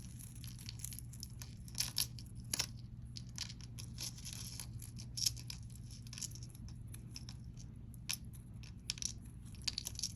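Scattered small clicks and rustles of costume jewelry pieces and small bags being handled and sorted.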